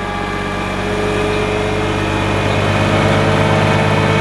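Truck's diesel engine running steadily to drive the hydraulics of its truck-mounted knuckle-boom crane as the boom unfolds, with a steady hum that grows gradually louder.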